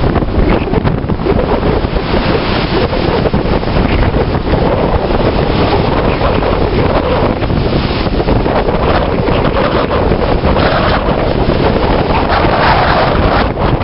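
Wind buffeting the microphone loudly, over the wash of sea waves.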